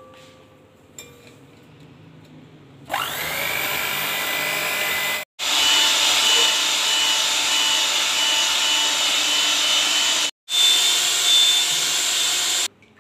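Electric hand mixer starting about three seconds in, whining up to speed, then running steadily as its beaters whip eggs and sugar. It breaks off sharply twice for a moment and stops near the end.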